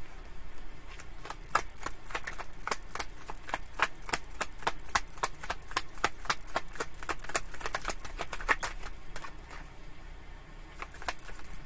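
Tarot deck being shuffled by hand: a fast, irregular run of sharp clicks and slaps as the cards strike each other, with a short lull near the end.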